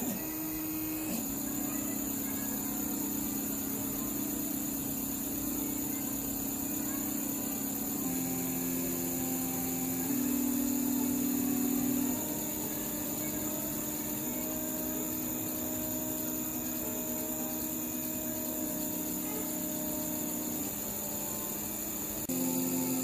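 Two-phase Sanyo-Denki stepper motors driven half-step by a CNC controller, humming at steady pitches that jump to a new pitch every few seconds as the step rate changes. A thin high whine runs steadily underneath.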